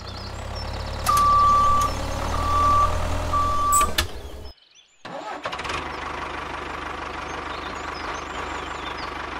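Tractor engine running, with three short high beeps in the first four seconds; it cuts out briefly about four and a half seconds in, then runs on steadily, with birds chirping faintly.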